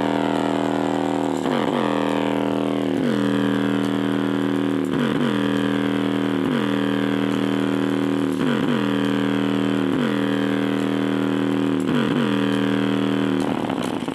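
A 3-inch dual-magnet subwoofer driven by a ZK502 Bluetooth amplifier plays a sound-test track: a steady droning pitched tone whose pitch swoops down and back up about every second and a half. It stops shortly before the end.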